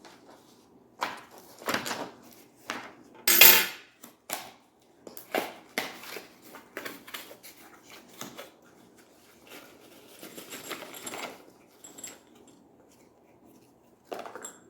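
Parts of a shower head and hose kit being handled and fitted together: a string of irregular knocks and clinks of hard fittings, with the loudest clatter about three and a half seconds in.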